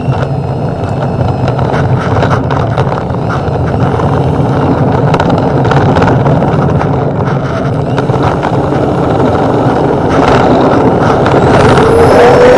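Twin electric ducted fans of an RC A-10 model, heard through its onboard camera, running with a constant rattle and knocking as the model rolls along the runway. The sound grows steadily louder, and near the end a fan whine rises in pitch.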